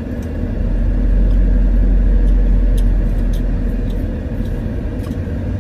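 Steady low rumble of a car's engine and road noise heard from inside the cabin while driving, a little louder from about half a second in, with a few faint clicks.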